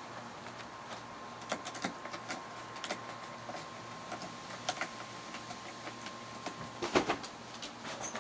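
Light, irregular clicks and scratches of a cat's claws and paws on a corrugated cardboard scratcher and wooden deck boards, with a louder cluster of knocks and rustling about seven seconds in.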